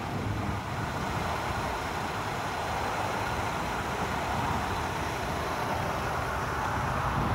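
Steady motor-vehicle noise: an even rumbling hiss over a low hum, with nothing standing out from it.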